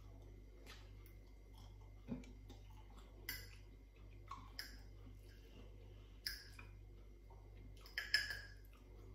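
Close-up eating sounds of a person eating ramen noodles with a fork: several short, sharp wet mouth sounds and light clicks of the fork on a plate every second or so, over a faint steady hum.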